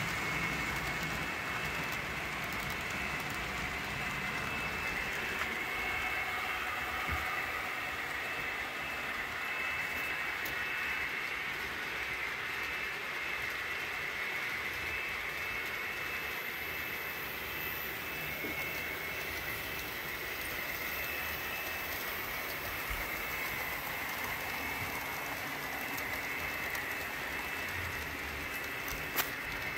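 Model trains running on the layout's track: a steady whir of small locomotive motors and wheels on rail, with a sharp click near the end.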